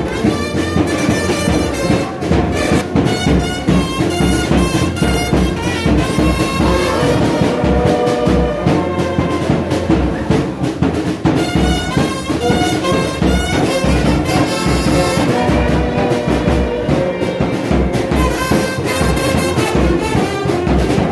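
Brass band music, trumpets and trombones playing over a repeating low beat.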